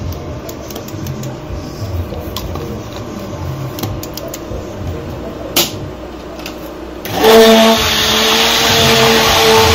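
Electric hand blender whisking a watery mixture of rose water and aloe vera gel in a plastic jug. Its motor cuts in loudly about seven seconds in with a steady whine, after quieter handling sounds and a sharp click.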